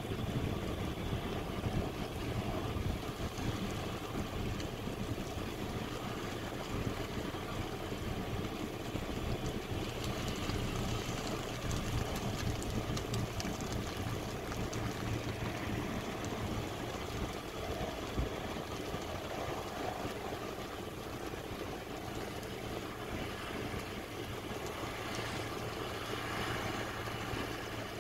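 Fire truck's diesel engine running steadily at idle, a low hum under a haze of outdoor noise.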